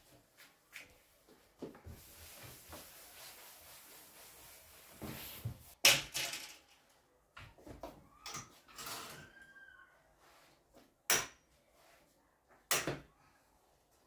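Clothes hangers clacking on a wardrobe rail, with cloth rustling as garments are hung up; a few sharp clacks stand out, the loudest about six seconds in.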